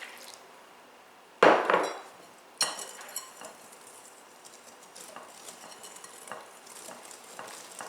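A wire whisk stirring milk into batter in a mixing bowl: a sudden thump about a second and a half in, a sharp clink a second later, then soft irregular clicks and scrapes of the whisk against the bowl.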